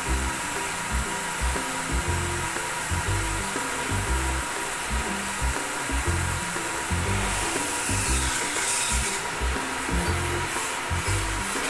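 Steady hiss of a pressure washer spraying water onto air-conditioner units, growing brighter for a moment about two-thirds through, under background music with a steady bass beat.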